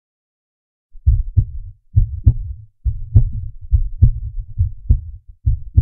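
Recorded heartbeat sound effect: low, paired lub-dub thumps repeating steadily at a little over one beat a second, starting about a second in.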